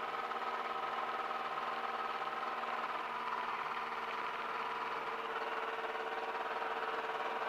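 Light aircraft engine idling steadily on the ground just before the run-up, heard through the cockpit intercom audio feed.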